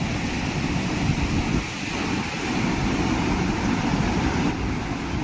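Steady roar of Godchinmalki Falls on the Markandeya river in full flow, with wind rumbling on the microphone.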